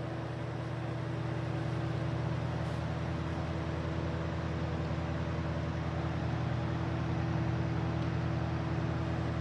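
Westinghouse 8-inch Riviera electric desk fan running on high speed: a steady motor hum under the rush of air from the blades, building over the first couple of seconds as it comes up to speed, then holding steady. The motor runs quietly on freshly oiled bearings.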